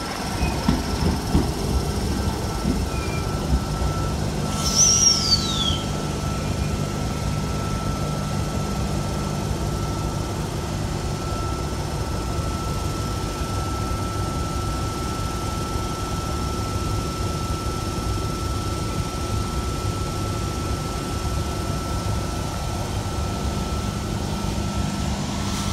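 Electric double-deck train standing at the platform, its equipment giving off a steady low hum and a thin steady whine. About five seconds in there is a short falling squeal.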